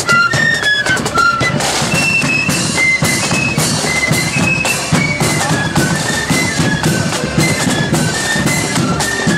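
Marching flute band playing a tune: a high flute melody stepping up and down over a steady beat of side drums and bass drum.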